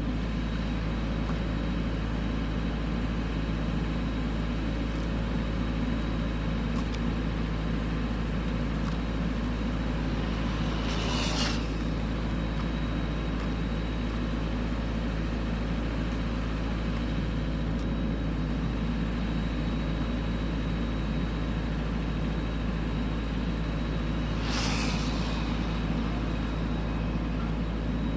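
Steady drone of a gas-engine wood chipper running, with a low hum underneath. Twice, about 11 and 25 seconds in, a brief sharp whoosh of something passing fast.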